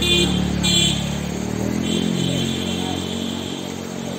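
A motor vehicle's engine running, with two short high-pitched beeps in the first second and a fainter, longer beep from about two seconds in.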